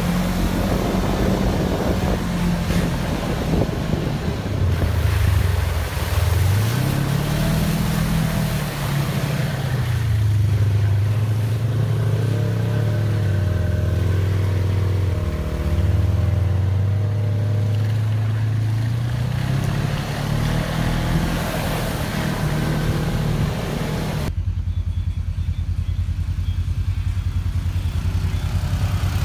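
ATV engine running, its pitch rising and falling as the throttle is opened and eased off. About 24 seconds in it changes abruptly to a steady, low, evenly pulsing run.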